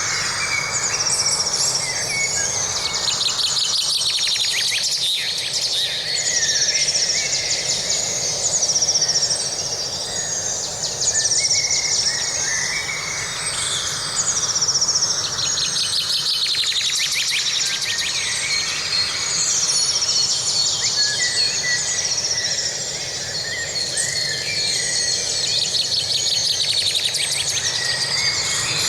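Forest birdsong: several birds singing and calling over one another, with a fast trill that comes back about three times, over a steady background hiss.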